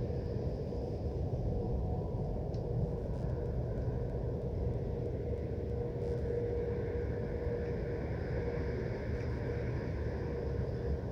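Foundry machinery running: a steady low industrial rumble with a constant droning hum that does not change.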